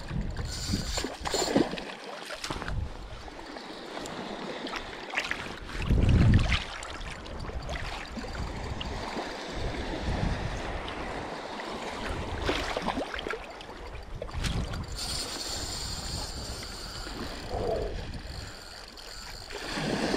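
Small sea waves lapping and splashing around a wader in shallow water, with wind buffeting the microphone. A loud low thump about six seconds in, and a brighter hiss of breaking surf over the last few seconds.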